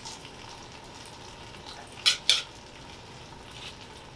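Metal tongs clink sharply twice against a stainless steel sauté pan about two seconds in while stir-fried vegetables are lifted out. Under the clinks is a faint, steady sizzle from the hot vegetables in the pan.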